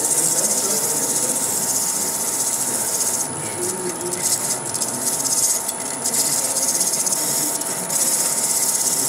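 Wood spinning on a lathe with a turning tool or abrasive held against it: a steady high hiss, broken off briefly a few times as the contact is lifted.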